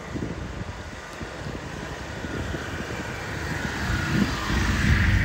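Wind buffeting the microphone, with a motor vehicle's engine drone growing steadily louder from about halfway through as it approaches.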